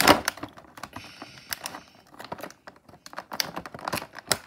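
Clear plastic toy packaging crackling and clicking as it is handled and cut with scissors, in quick irregular clicks, loudest in a burst right at the start.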